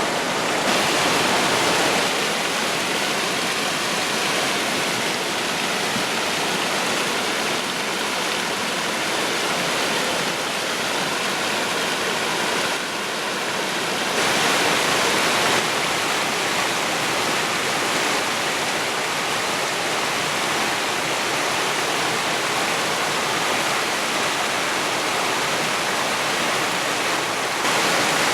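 Creek water rushing and splashing over rocks in a steady wash of noise, dipping slightly about halfway through and swelling again just after.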